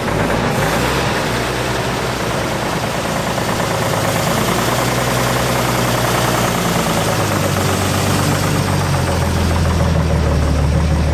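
An engine running at a steady idle, a low hum that grows louder about two-thirds of the way in, over a steady rushing noise.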